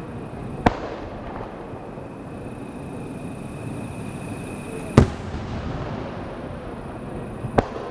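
Aerial fireworks shells bursting: three sharp bangs, one just after the start, one about five seconds in and one near the end, the middle one the loudest.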